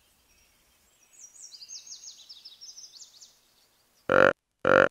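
Faint high-pitched bird chirps as a forest ambience, then two short, loud calls from the cartoon antelope about half a second apart near the end.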